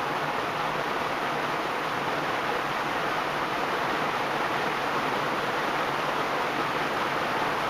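Evergo 56-inch industrial ceiling fan with four metal blades running on full speed, around 300 RPM or more, giving a steady heavy rush of air.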